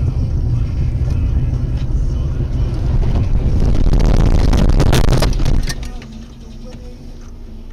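Car interior dashcam audio: the steady low rumble of a car driving. From about three and a half seconds in it gets louder, with a rattling clatter and a series of knocks as the car runs off the road over rough ground. The noise drops off sharply just before six seconds.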